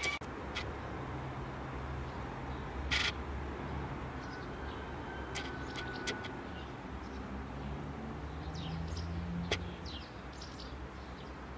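Outdoor ambience: a steady low rumble with a few sharp clicks, and faint short bird chirps near the end.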